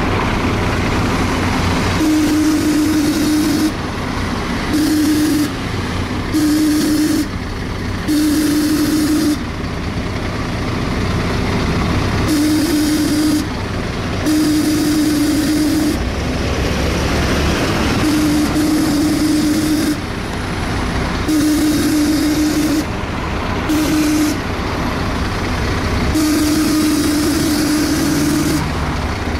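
Volvo B7TL double-decker bus on the move, heard from inside: a loud suction noise, a droning hum that switches on and off every second or few seconds at irregular intervals, over the engine and road noise.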